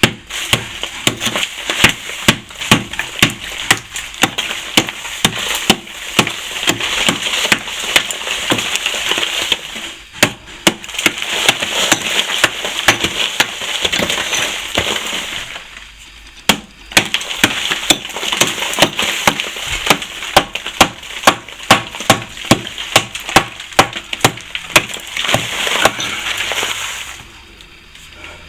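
Old plaster being chipped and raked out along a crack with a hand tool: a quick, irregular run of sharp knocks and scrapes as bits of plaster crumble away, with a few short pauses.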